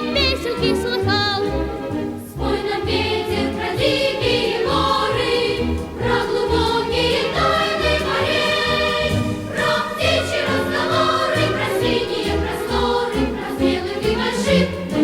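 Music with a steady beat and a choir of voices singing.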